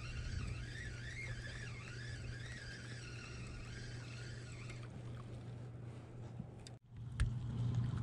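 A spinning reel being cranked to bring in a small rainbow trout, its faint whine rising and falling with the turns of the handle over a steady low hum. The whine stops about five seconds in, and near the end the sound breaks off suddenly and a click follows.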